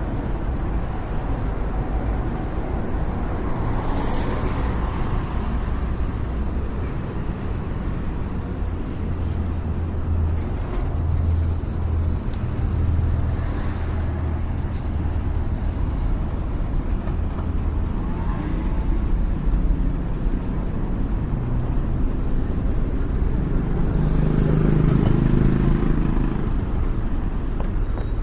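Daytime city street ambience: a steady rumble of traffic with cars passing now and then, a louder vehicle going by around the middle of the last third.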